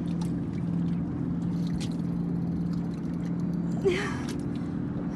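Mercury outboard motor idling with a steady low hum, with a short sharp sound about four seconds in.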